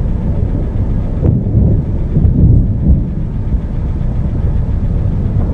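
Thunder rumbling during a storm: a deep, continuous rolling noise.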